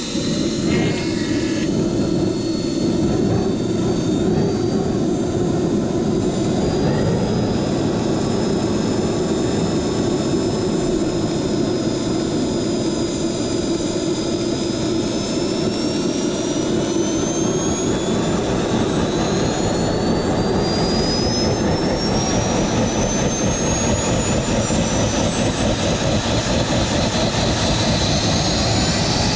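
Small turbojet gas generator of a homemade turboshaft engine running on a test stand: a steady jet roar with a high turbine whine that climbs steadily in pitch over the second half.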